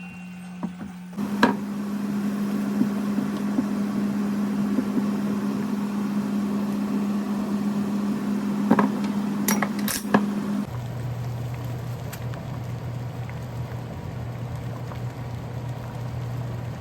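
A steady electric appliance motor hum that starts about a second in and drops to a lower hum near two-thirds of the way through, with a few sharp clicks shortly before the change.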